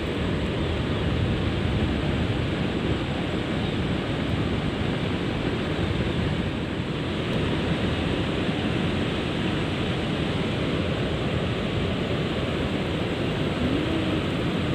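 Steady, loud rushing of river water pouring over a weir.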